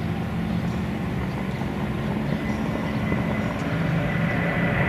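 Lockheed L-1049 Super Constellation's four Wright R-3350 radial piston engines droning steadily as the airliner approaches low over the runway with its gear down. The drone grows gradually louder as it comes closer.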